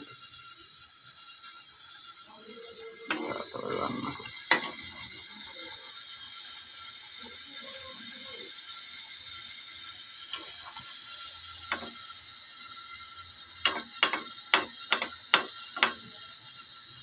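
Luchi deep-frying in hot oil in a pan, a steady sizzle. A quick run of sharp clicks comes near the end.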